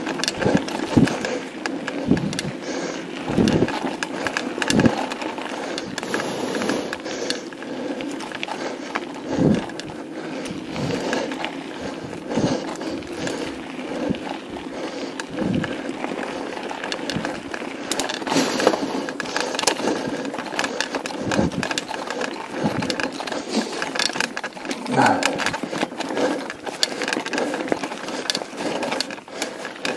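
Mountain bike ridden fast over a rough, stony dirt trail: its tyres crunch on loose gravel while the bike clatters and knocks irregularly over bumps and rocks.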